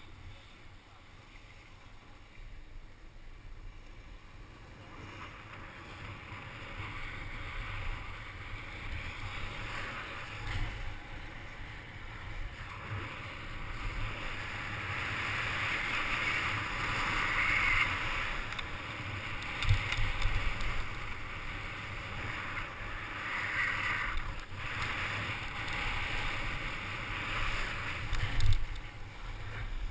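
Skis sliding and scraping over packed snow on a downhill run, with wind buffeting the microphone. The rushing hiss grows louder as speed builds, and a few sharper scrapes come in the second half.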